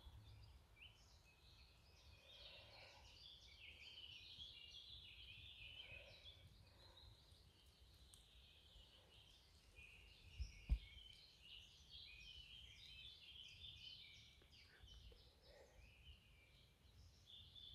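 Near silence, with faint, busy high chirping of small birds throughout and one soft low thump about eleven seconds in.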